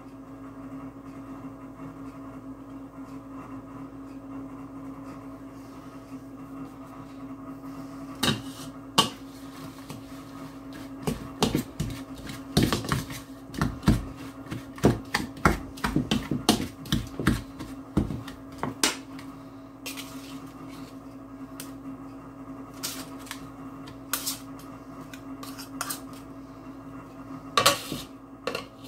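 Metal pastry blender clicking and scraping against a mixing bowl as butter is cut into flour for a crumble topping, in quick runs of clicks through the middle and sparser taps near the end. A steady low hum sits under it.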